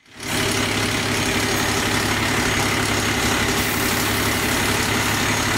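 Tow truck's engine idling steadily, a low even hum that fades in at the very start.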